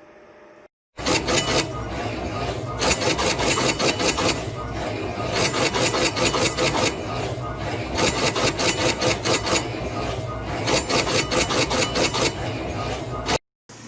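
A machine working with rapid, rhythmic rasping strokes, many a second, like filing or sawing. It starts abruptly about a second in and cuts off suddenly near the end.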